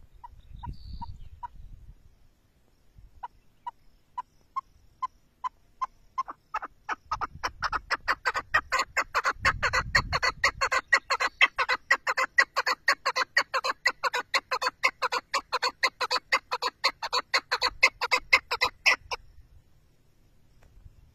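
Chukar partridge calling: single clucking notes that come slowly at first, then speed up over several seconds into a fast, loud, continuous run of calls. The run stops abruptly near the end.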